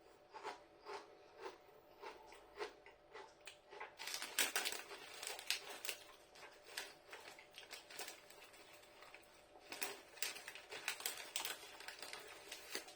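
Crinkle-cut potato crisps being crunched and chewed, a run of faint dry crackling crunches, densest about four seconds in and again near the end.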